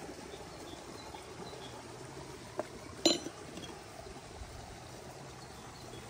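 A light tap, then about three seconds in a sharp clink of kitchenware that rings briefly, over faint steady outdoor background.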